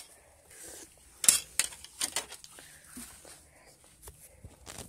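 Scattered clicks and knocks from a phone camera being handled and set in place, the loudest about a second in and a few smaller ones after it, with quiet in between.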